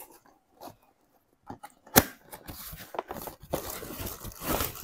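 Cardboard shipping box being opened by hand: a sharp snap about two seconds in, then the cardboard flaps rustling and scraping as they are pulled open.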